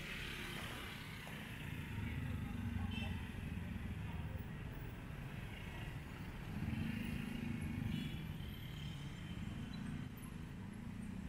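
City street traffic: engines of passing vehicles swell and fade a few times over a steady hum of traffic, with people's voices in the background.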